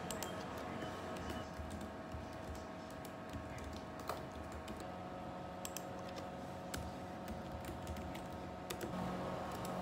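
Typing on a laptop keyboard: irregular light key clicks, over a faint steady hum.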